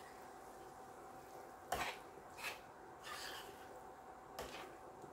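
A spoon scraping and knocking against a stainless-steel frying pan while pieces of eel and onion are stirred, in about four short, spaced-out strokes.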